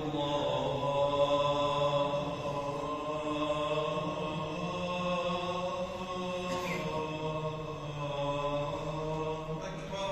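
A man's voice chanting in Arabic in long, held melodic phrases, leading the congregation in a mosque prayer.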